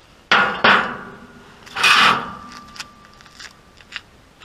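Metal parts knocked and set down on a sheet-steel worktable: two knocks with a ringing tail, then a louder scraping clank about two seconds in whose clear ring hangs on for over a second, followed by a few light taps.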